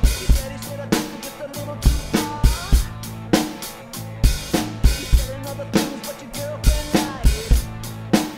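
Acoustic drum kit played in a rock groove, with kick-drum and snare hits and cymbals, over a backing track that carries bass and guitar.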